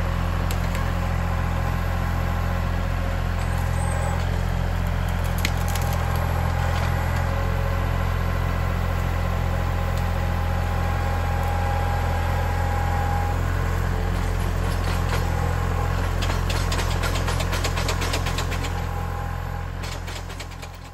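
Kubota L3901 compact tractor's diesel engine running steadily, with scattered crackles in the last few seconds; the engine sound fades out near the end.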